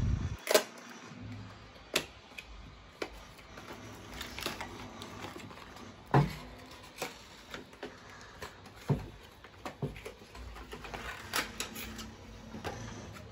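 An SSD's retail packaging being worked open by hand: scattered, irregular sharp clicks, taps and crackles of cardboard and plastic as the box is prodded and its white plastic tray is slid out.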